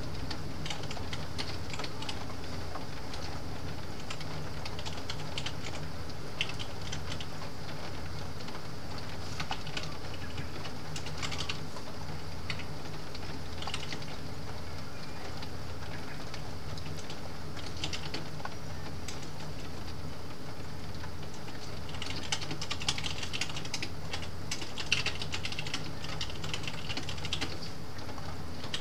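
Computer keyboard typing: scattered keystrokes, then a faster, denser run of typing near the end, over a steady low background noise.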